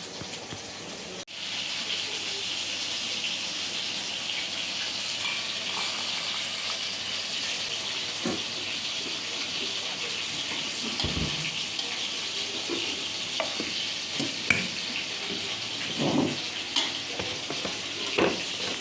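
Food sizzling in hot oil in a cooking pan: a steady frying hiss that gets louder about a second in, with a few short knocks of a spatula or ladle against the pan in the second half.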